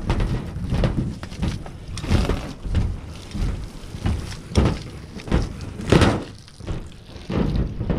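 Work boots walking on a ribbed sheet-metal roof, giving an uneven series of thumps about one every half second to second, over a low rumble of wind on the microphone.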